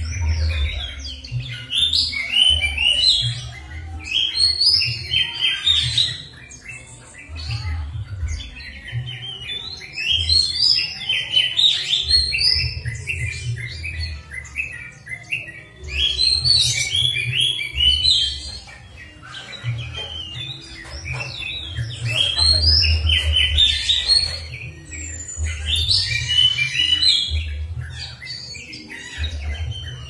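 Songbird singing in fast runs of sharp, high chirps and trills, phrases of a few seconds broken by short pauses, over a low rumble. It is a bait-call (pancingan) recording of the kind played to set caged songbirds singing.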